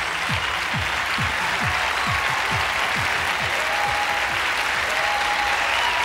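Theatre audience applauding, over music with a low beat pulsing about twice a second that fades out after the middle.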